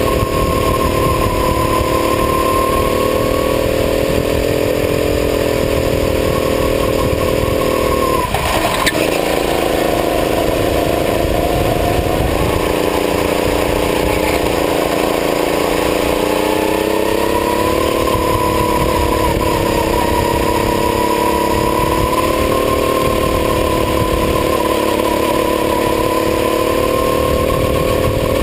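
Kart engine running hard under load on a lap. Its pitch drops sharply about eight seconds in, with a brief knock, stays lower for several seconds, then climbs back up and holds.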